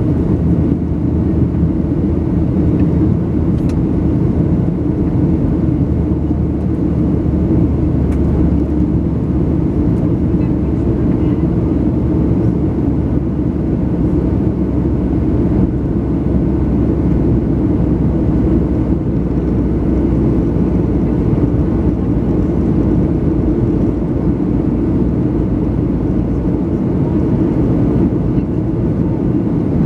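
Steady low roar inside the cabin of a Boeing 737-700 in flight: its CFM56-7B jet engines and the airflow over the fuselage, holding an even level with no changes.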